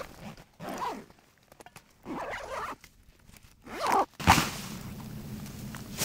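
Backpack zipper being pulled shut in three short strokes, the last around four seconds in, followed by a sharp knock and a steady low background.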